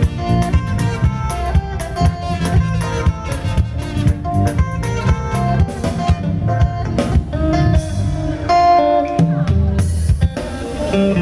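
Live band playing: drum kit keeping a steady beat under electric guitar and bass guitar. Near the end the drum hits thin out into a cymbal wash.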